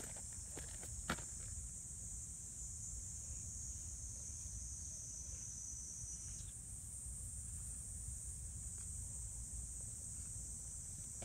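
Steady high-pitched chorus of insects singing, part of it cutting off about six seconds in, over a low outdoor rumble.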